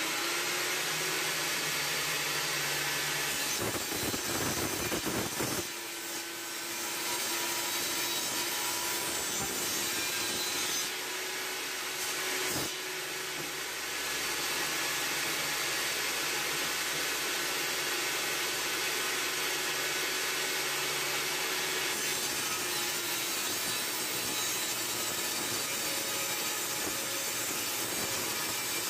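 Table saw running steadily, its blade ripping hardwood boards into strips, the sound changing a few times as the wood is fed through and cleared.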